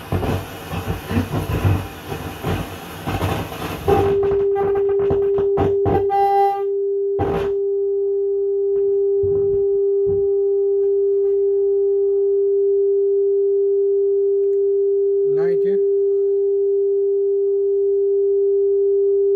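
A Pioneer SX-1080 receiver plays FM radio speech, then about four seconds in it switches to a steady single test tone from an FM signal generator, which holds unbroken. There are a couple of faint clicks and a brief blip partway through.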